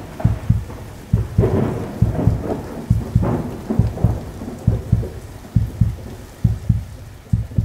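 Sound effect under an animated channel logo: an uneven run of deep booming hits, three or four a second, over a rushing noise that swells and fades.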